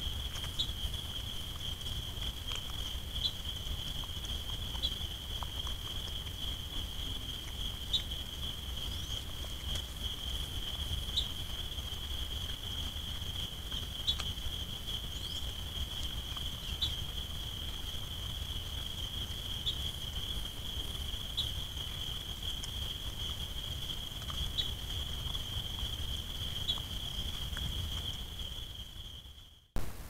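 An insect's steady high-pitched trill, one unbroken tone, with faint clicks scattered every second or two over a low rumble.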